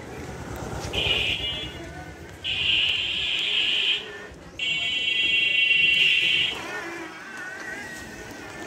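A vehicle horn sounded three times, high-pitched and buzzy, each blast about one to two seconds long, over the low rumble of a motorcycle passing close by at the start.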